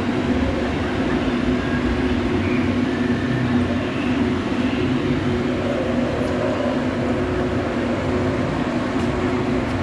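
Steady low mechanical hum holding two even tones over a constant rushing background noise.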